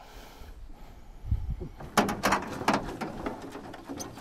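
Knocks and clatter on a small boat, starting with a low thump a little over a second in and followed by a run of sharp knocks.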